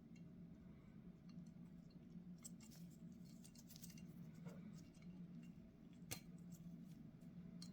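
Faint light clicks and taps of small carburetor parts and tools being handled during disassembly, with one sharper click about six seconds in, over a low steady hum.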